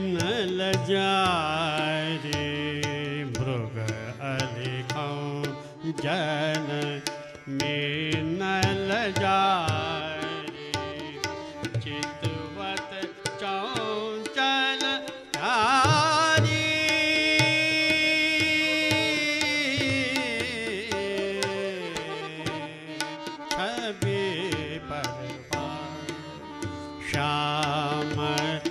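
Male voice singing Indian classical devotional music, with gliding, ornamented melodic runs and a long held note about halfway through. Tabla strokes and a steady drone accompany it.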